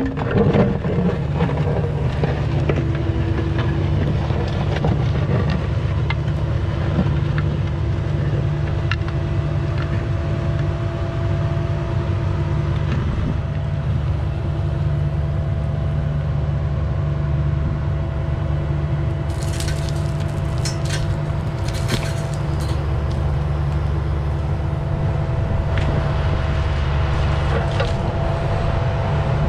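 Mini excavator engine running steadily while digging, with a cluster of sharp knocks about two-thirds of the way through.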